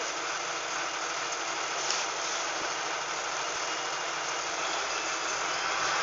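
LiAZ-5256 city bus engine running, heard inside the passenger cabin as a steady, even drone with one faint tick about two seconds in.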